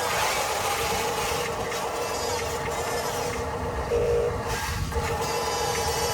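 Toy-scale RC construction trucks running, with an electronic sound module giving a steady tone and a louder beep about four seconds in, over a gritty mechanical noise.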